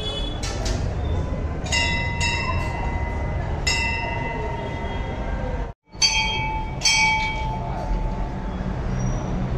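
Brass temple bells struck again and again, about seven clangs, each ringing on, over crowd chatter; the sound cuts out for an instant just after halfway.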